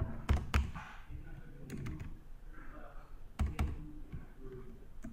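Computer keyboard keystrokes as letters are deleted and retyped: a few separate sharp key presses in two quick pairs, with fainter taps between.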